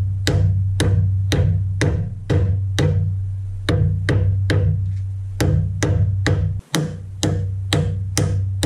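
Background music: a steady low bass note under a sharp, knocking beat about twice a second.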